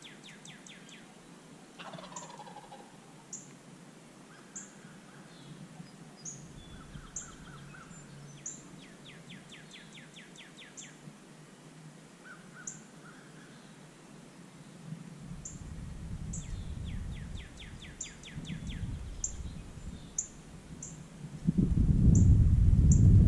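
Wild birds calling in the early morning: repeated short high chirps and several rapid trills about a second long, with a lower call that falls in pitch about two seconds in. Near the end a loud low rushing noise comes in and covers the birds.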